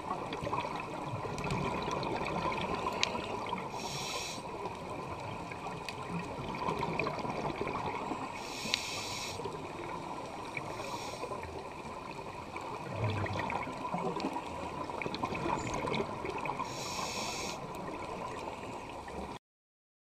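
Underwater sound through a diving camera's housing: a steady hiss and rumble of the water. Three short rushes of scuba exhaust bubbles come about 4, 9 and 17 s in. The sound cuts off abruptly near the end.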